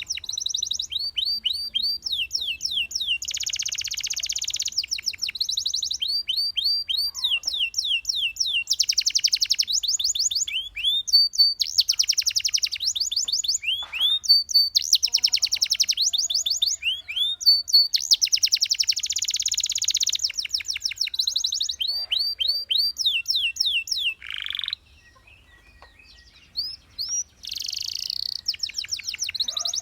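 Domestic canary singing: fast trills of repeated downward-sliding notes alternating with dense rolling phrases, the song changing every second or two, with a short break near the end.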